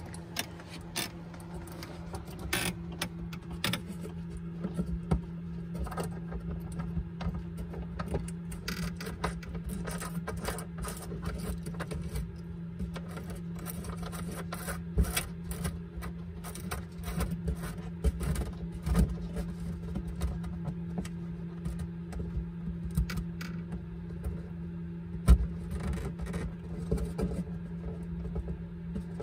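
Scattered small clicks, taps and scrapes of hands working a voltmeter's plastic mounting ring and its wires, with one louder knock near the end, over a steady low hum.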